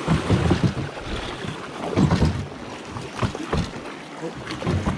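River water rushing and splashing around a small fishing boat, with a few irregular low knocks and thumps against the hull.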